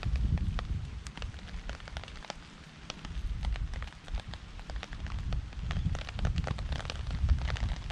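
Campfire crackling and rain falling on a tarp: many sharp, irregular clicks and pops, over a low rumble of wind gusts on the microphone that swells and fades.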